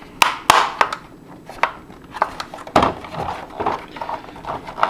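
Hard plastic toy parts clicking, knocking and rubbing against each other as a piece is fitted onto a G.I. Joe Eaglehawk toy helicopter, with several sharp clicks and stretches of scraping between them.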